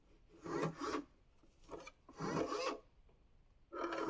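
Three short rasping, rubbing bursts as a plastic filament spool is turned by hand in its slot in a Bambu Lab AMS to feed the filament in. A louder, steadier sound starts just before the end.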